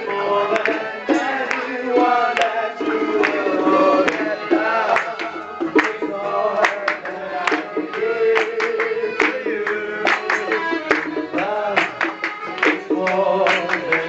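Live Malay band music: a singer on microphone over strummed acoustic guitar, bass guitar and bongos, with frequent sharp hand-drum strikes.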